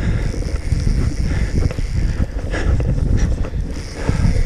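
Wind buffeting the camera microphone: a loud, uneven low rumble.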